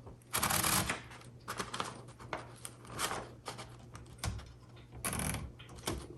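A sheet of paper rustling and sliding as it is fed into a 1960s Singer (Royal) Scholastic portable typewriter, followed by a string of short rasps and clicks from the platen and paper feed as the sheet is worked around the roller.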